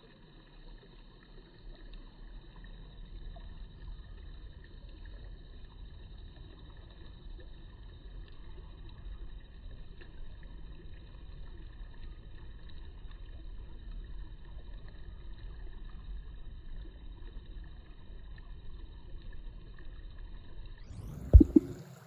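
Steady low outdoor rumble with faint, steady high-pitched whining tones; the kingfisher makes no call. Two sharp knocks about a second before the end.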